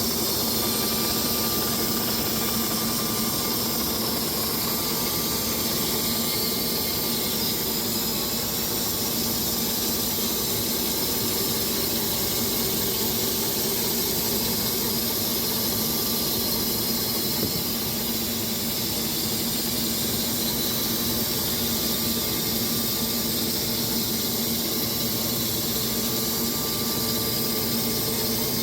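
Wood-Mizer LX250 electric band sawmill running, its blade cutting through walnut and white oak logs laid side by side: a steady hum with a strong high hiss that holds level throughout.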